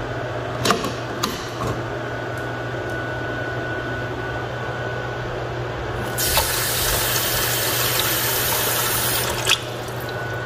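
Kitchen faucet running water into a pot to fill it. About six seconds in, the water turns to a louder, brighter hiss for about three seconds, then cuts off with a click.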